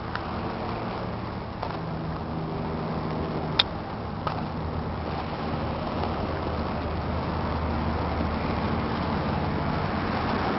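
John Deere 8410 tractor's 8.1-litre six-cylinder diesel idling steadily, growing slightly louder over the stretch. A single sharp click about three and a half seconds in.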